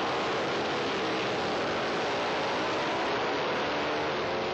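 Two vintage racing motorcycles running at speed, passing close and pulling away down the track with a loud, continuous engine note.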